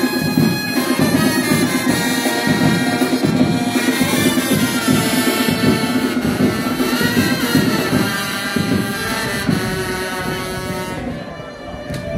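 Festival music from wind instruments playing a tune in long held notes.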